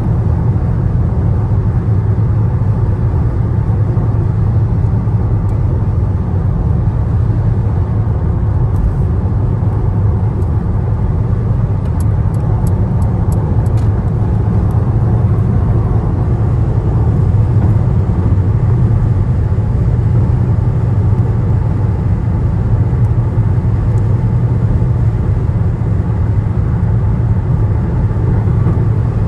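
Steady road and engine noise heard inside a moving car, a deep, even rumble. About twelve seconds in, a short run of faint, quick ticks sounds over it.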